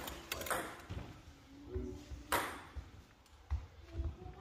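Table tennis ball bouncing with a few scattered light taps, the clearest about two seconds in.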